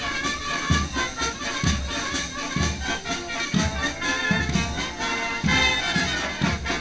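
Brass marching band playing a march, horns and tubas together over a low beat about once a second.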